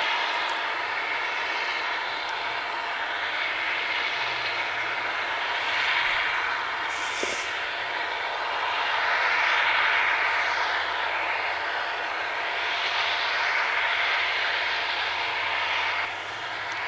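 Airbus A330's jet engines running during a ground engine test: a steady roar of turbofan noise with faint steady tones in it, swelling and easing in slow waves.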